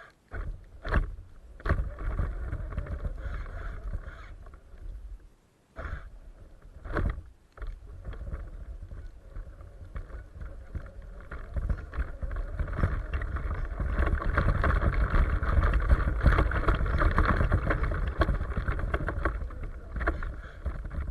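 Radio-controlled truck driving through snow: its motor and drivetrain running with the tyres churning snow, with a few sharp knocks in the first seconds and a longer, louder run from about twelve seconds in.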